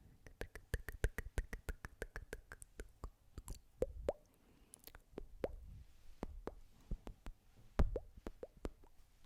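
Close-miked ASMR hair-plucking sounds: a quick run of soft clicks and pops, about eight a second for the first three seconds, then sparser and more irregular.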